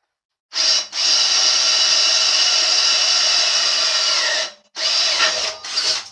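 Handheld electric drill drilling a bolt hole. The motor runs in a brief burst, then holds steady for about three and a half seconds, and is triggered in two more short bursts near the end.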